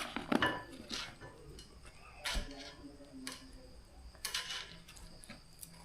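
Handling of takeaway noodle packaging: a few separate clicks and rustles, the loudest about two and four seconds in.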